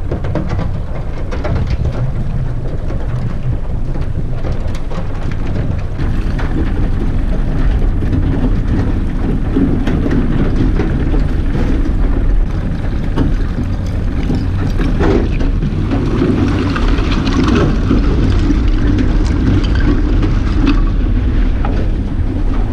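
A pontoon boat's aluminium pontoons breaking through a sheet of thin lake ice: a dense run of crackling, crunching and scraping as ice plates crack and slide along the hull. A steady low rumble runs beneath it.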